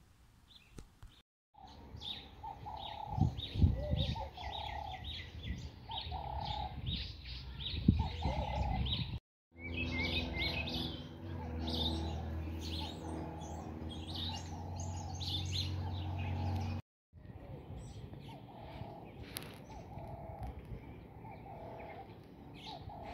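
Songbirds chirping rapidly, with a second bird's call repeated about once a second, over a faint outdoor background. A steady low rumble joins in the middle, and the sound drops out twice for a moment.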